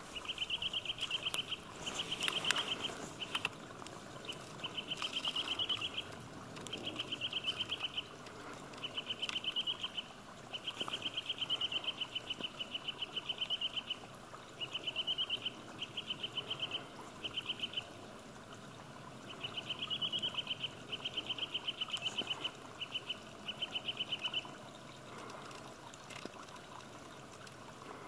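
Eurasian nuthatch singing its spring song: bouts of a fast, even trill of high repeated notes, each about a second long, repeated with short pauses and stopping a few seconds before the end.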